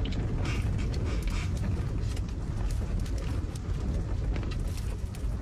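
Strong wind blowing steadily with a deep rushing noise and no letting up.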